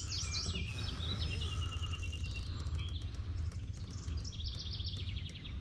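Wild songbirds calling: scattered high chirps, a short trill about a second and a half in, and a quick run of chirps near the end, over a steady low outdoor rumble.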